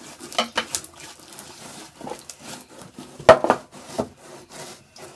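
Rubbing and scraping on a tabletop with scattered small taps while slime is mixed. There is one louder knock about three seconds in.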